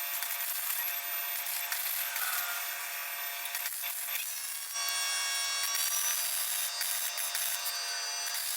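Electric welder laying beads to fuse a wrench onto a seized bolt head: a continuous crackling arc with a steady electrical whine, changing in tone about halfway through.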